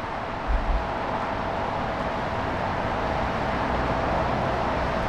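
Steady urban background noise with a constant mid-pitched hum running through it, and a brief low thump about half a second in.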